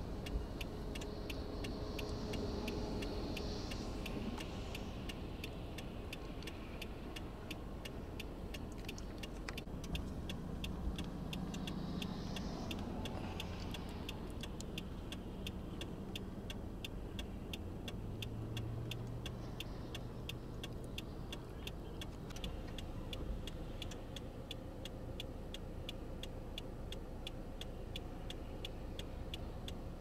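A car's indicator flasher ticking steadily, several clicks a second, over the low hum of an engine running.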